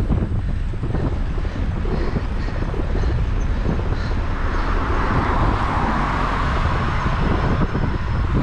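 Wind buffeting the microphone of a handlebar-mounted camera on a moving road bike, a steady low rumble. From about halfway through, a car passing the bike adds a rising and then fading hiss of tyre and engine noise.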